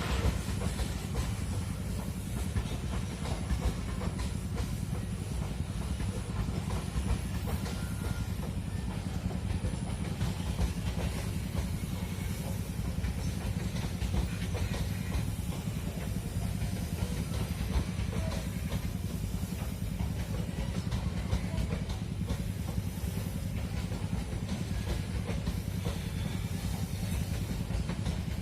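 Long Babaranjang coal train of many wagons rolling past: a steady low rumble with dense wheel clatter on the rails and a hiss of rolling noise, unchanged throughout.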